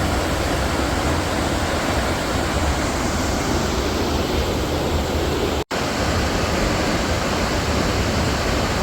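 Large waterfall, a steady loud rush of falling water. It cuts out for an instant a little past halfway.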